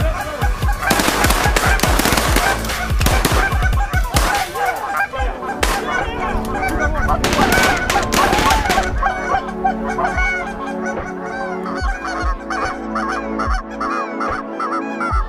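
A large flock of geese honking and calling over the decoys, many birds at once. The calls are densest and loudest for the first nine seconds or so, then thin out to scattered honks.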